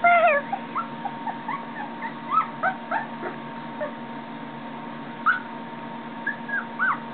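Puppy whimpering: short high-pitched whines, sparse at first and coming about two a second near the end.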